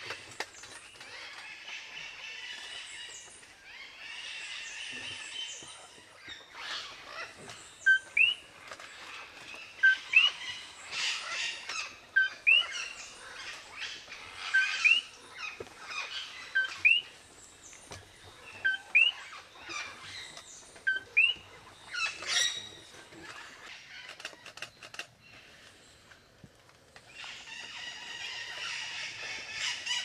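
Puerto Rican parrots (Amazona vittata) calling in dense bursts of squawks near the start and end. Through the middle a short call that sweeps upward repeats about every two seconds, among louder squawks.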